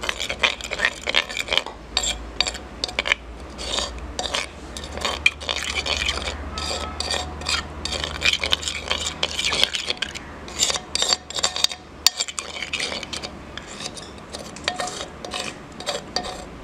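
Metal spoon stirring yogurt into ground spices in a terracotta clay bowl: a quick, uneven run of scrapes and small clinks of the spoon against the clay.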